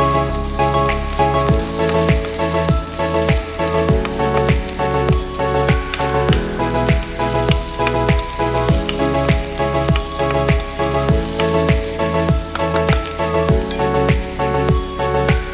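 Chopped onion sizzling in hot oil in a stainless wok as it is stirred. Background music with a steady beat plays over it.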